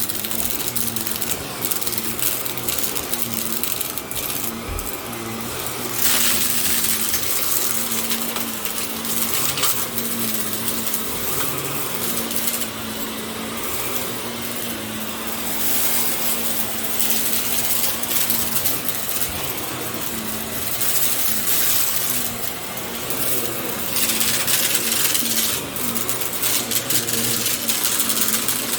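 Bissell compact vacuum cleaner running, with a steady motor hum under a rushing hiss of air that swells and fades every few seconds as it is moved. A fine, rapid rattling crackle runs through it.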